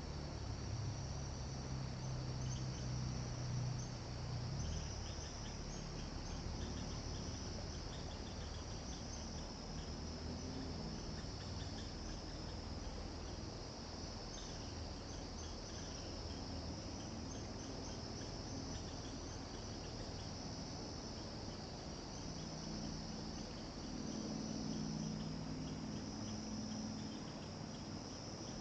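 Steady, high-pitched insect chorus, with a low hum underneath that swells a couple of seconds in and again near the end.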